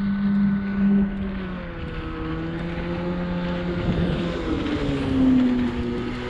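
A passing engine hums steadily. Its pitch drops about one and a half seconds in and again around four seconds in.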